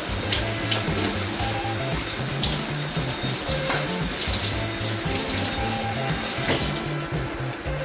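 Kitchen tap water running steadily into a stainless-steel sink over a block of tofu being rinsed by hand; the flow stops about seven seconds in.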